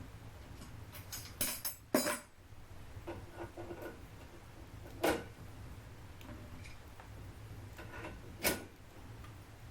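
Scattered metal clinks and knocks, a cluster of them a second or two in and single ones about halfway and near the end, over a steady low hum: metal parts of a fireplace barbecue grill being handled.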